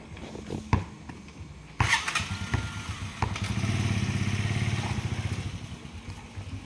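A motorcycle engine comes in suddenly about two seconds in, grows louder through the middle, then fades toward the end. Before it there is a sharp thump of the ball on the dirt court.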